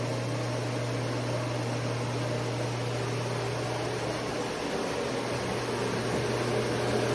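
MOVA S10 Plus self-empty dock running its auto-empty cycle, its suction fan pulling dust from the robot vacuum's bin into the dock's dust bag: a steady rush of air with a low hum underneath. The hum drops away briefly past the middle, and the noise swells slightly near the end.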